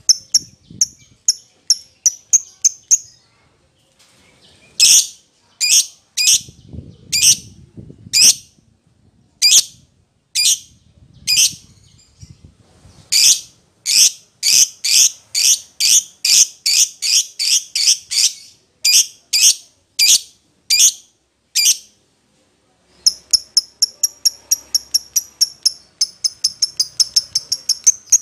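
Agitated fighter lovebird calling in a long series of sharp, high chirps. The chirps come widely spaced at first, quicken into a fast run, break off briefly, then rush into a rapid string near the end.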